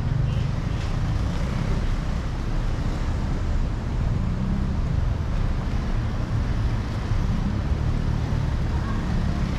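Steady low rumble of road traffic on a busy city street.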